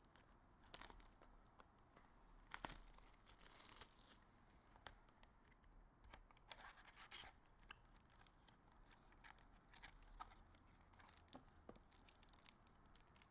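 Faint tearing, rustling and scattered light clicks of a trading-card mini box being opened and its cards handled.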